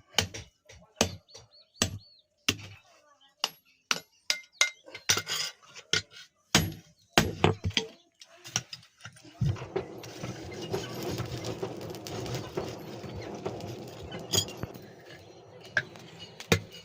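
Hammer blows on iron at the anvil, sharp metallic clinks coming unevenly at about two a second. Past halfway they give way to a steady rasping noise for about six seconds, and a few more blows come near the end.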